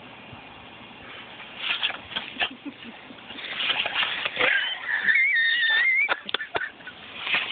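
A German Shepherd lunging and biting at the spray from a garden hose nozzle: water hissing and splashing, growing louder midway, with the dog's high, wavering whine for about a second and a half near the middle and a few sharp snaps just after it.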